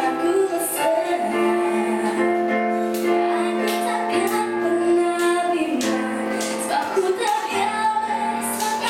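A young girl singing a song with long held notes into a microphone, accompanied by a Yamaha electronic keyboard playing sustained chords and a stepping bass line.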